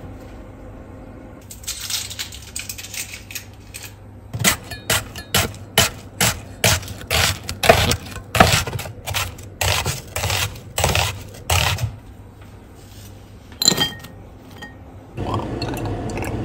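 Chef's knife slicing through a red onion onto a wooden cutting board, a little over two sharp strokes a second for about seven seconds. After a clink, cooking oil pours into a stainless steel pot with a steady hiss near the end.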